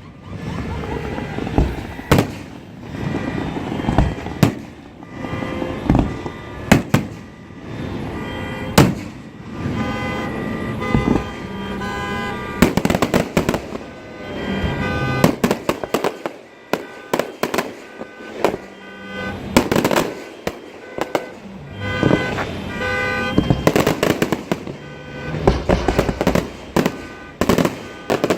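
Fireworks show: repeated booming bursts and sharp cracks, coming in quick crackling clusters from about halfway through, with steady tones sounding under them.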